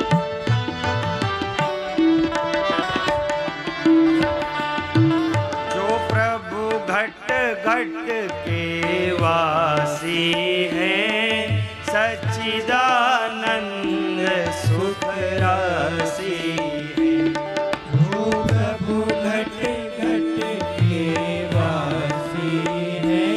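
Devotional bhajan music: tabla playing a steady pattern under sustained accompaniment, with a male voice singing long, winding melodic phrases from about six seconds in.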